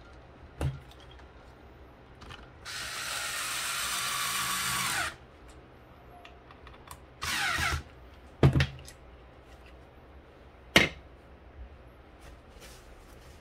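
Small power tool running in two bursts, one of about two and a half seconds and a shorter one a couple of seconds later, its pitch falling as it winds down at the end of each. A few sharp clicks come between and after the bursts.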